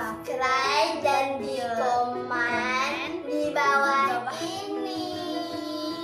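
A child's singing voice over music, the sung line rising and falling in held notes.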